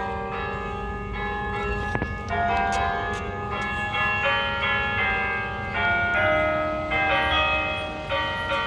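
Church tower bells ringing on and on, several bells of different pitch struck in quick succession, each strike ringing on under the next.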